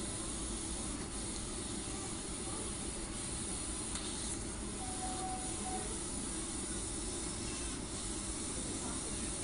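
Steady hiss in the background, with a few faint, short hiccups from a premature baby, about four seconds in and again near the end.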